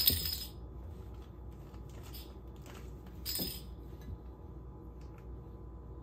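A cat batting a small plastic bottle cap around a tile floor: a short rustling scrape at the very start and again about three and a half seconds in, with a few light clicks of the cap between.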